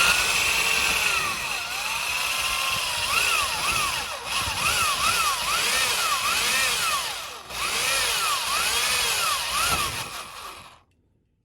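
Power drill with a 5/32-inch bit drilling out a metal rivet, the motor whirring with its pitch rising and falling as the trigger and load vary. It eases off briefly twice and stops near the end.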